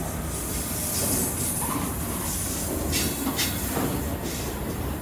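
Loaded EWS bogie hopper wagons of a heavy freight train rolling past at a platform: a steady rumble of steel wheels on rail with a high hiss on top, and a couple of sharp knocks about three seconds in as wheels cross rail joints.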